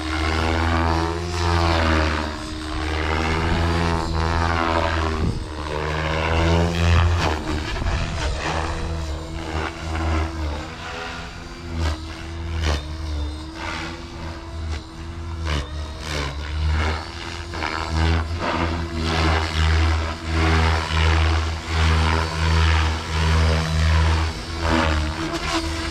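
Blade Fusion 550 electric RC helicopter in flight: motor and main-rotor whine with blade noise, its pitch bending up and down as the helicopter manoeuvres, and regular swells about once a second in the second half.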